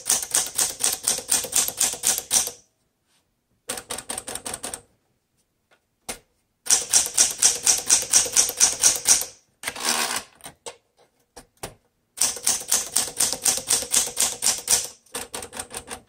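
A 1960 Smith Corona Sterling manual typewriter being typed on key by key. Its typebars strike the platen in four quick runs of about five strokes a second, with short pauses between them, and a carriage return comes about ten seconds in.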